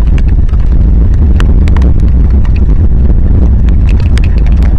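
Heavy rain on an outdoor camera microphone: a loud, steady low rumble with scattered sharp ticks of individual drops striking close to the mic.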